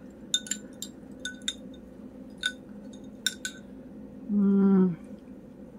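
Metal spoon clinking against the inside of a glass mug while milk tea with boba is stirred: about eight light, ringing clinks in the first three and a half seconds. A short, flat hum of a voice follows about four seconds in.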